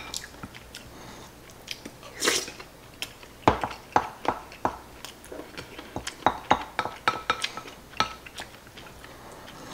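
A spoon clinks and scrapes against a ceramic bowl in a run of sharp taps while rice and omelette are scooped up, with chewing between the scoops.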